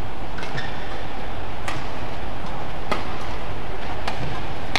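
Badminton rackets striking a shuttlecock in a fast doubles rally: sharp cracks a little more than once a second over the steady hum of the arena crowd.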